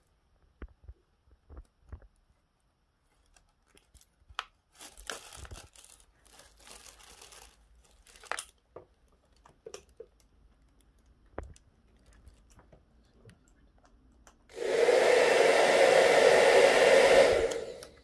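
BaByliss Pro Silence 2200W AC-motor hair dryer switched on, blowing with a steady rush of air for about three seconds near the end, then switched off abruptly. Before it come faint handling sounds: light clicks as the power cord is uncoiled and a few seconds of plastic wrapping crinkling.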